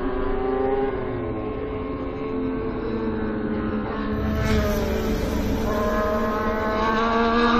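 Moto2 racing motorcycles' Triumph 765 cc three-cylinder engines running on track, several engine notes overlapping. A brief rush of noise comes about halfway through, and an engine note climbs in pitch near the end as a bike accelerates.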